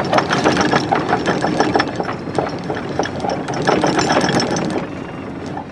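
Anchor chain paying out over the bow, a fast, dense metallic rattle that eases off near the end.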